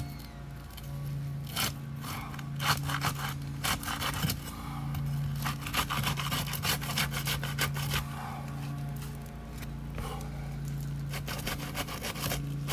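A metal shingle-removal tool scraping and rasping against asphalt roof shingles in a series of short, irregular strokes as it is worked under them, over a steady low hum.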